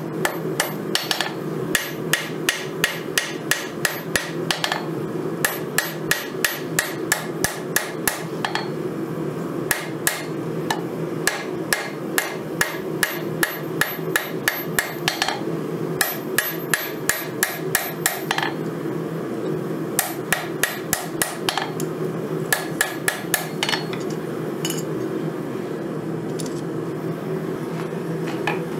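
Hammer blows on red-hot 5160 steel knife blade against the anvil: hand forging of the blade, with a bright ring on many strikes. The blows come about two to three a second in runs broken by short pauses, over a steady low hum, and thin out to a few strokes near the end.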